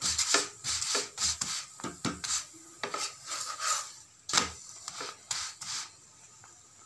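Flat spatula scraping and pressing a buttered paratha against a flat griddle (tawa) while it roasts: quick, irregular rubbing strokes, about two or three a second, with a sharper one about four and a half seconds in, stopping about six seconds in.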